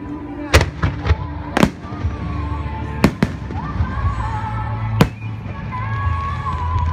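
Aerial fireworks shells bursting in a series of sharp, irregularly spaced bangs, about half a dozen in all. Music plays underneath, with a wavering melody throughout.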